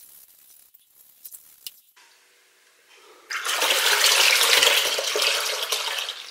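Water flushing through a Land Rover Series oil bath air filter housing and pouring out of its centre tube into a bucket of dirty water, splashing loudly from a sudden start about three seconds in and easing off near the end. Before it, faint small clinks as the filter mesh is handled in the bucket.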